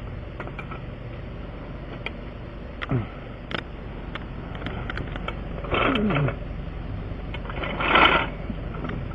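Short runs of a power tool, taken here for an impact wrench on the lug nuts, each falling in pitch as the motor winds down, about three seconds in and again near six seconds. A louder noisy burst of the tool follows near eight seconds, over the steady hum of an idling vehicle engine.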